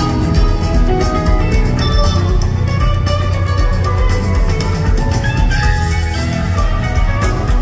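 A live rock band playing an instrumental passage: several electric guitars over bass and a drum kit, with cymbals struck steadily throughout.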